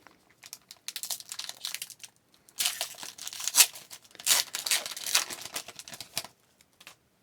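Wrapper of an Upper Deck hockey card pack crinkling and tearing open in several rustling bursts, the sharpest about three and a half seconds in.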